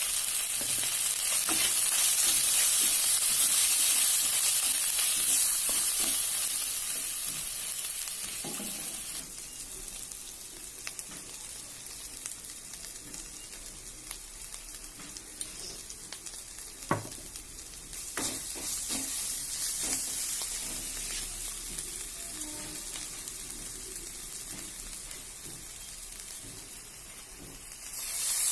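Hot oil sizzling as food fries in a pan, loudest in the first few seconds and then settling to a quieter hiss, with scattered sharp clicks of a utensil against the pan.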